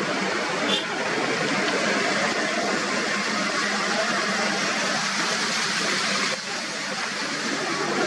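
Floodwater rushing steadily out of a dam burst by heavy rain: a continuous loud wash of water noise, dipping briefly about six seconds in.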